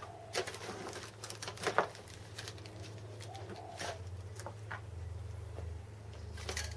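Small metal tools and parts being shifted and set down on a workbench during a search for a centre punch: scattered clicks and knocks, the loudest just under two seconds in.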